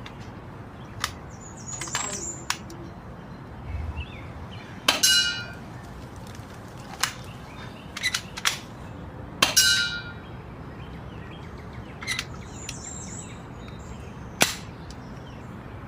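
Airsoft pistol shots: about nine sharp reports at irregular intervals, the two loudest each followed by a brief ringing. Birds chirp between the shots.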